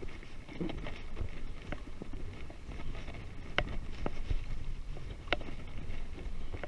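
A Specialized Riprock 20-inch kids' mountain bike rolling along a concrete path, heard through a handlebar-mounted camera: a steady low rumble of tyres and wind on the microphone, with sharp knocks of the bike jolting, the clearest about three and a half and five seconds in.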